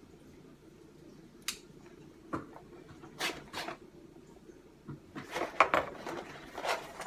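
A cardboard box being opened: a small knife slitting the packing tape, then the tape pulled off and the box handled. It comes as several short scrapes and taps, thickest in the last two seconds.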